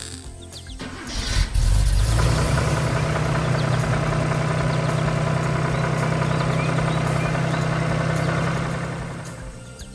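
Fire truck engine starting about a second and a half in, then running steadily, fading away near the end.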